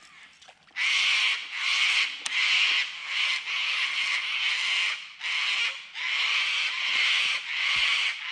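Cicadas calling loudly in a rhythmic series of rasping pulses, about one and a half a second, starting about a second in.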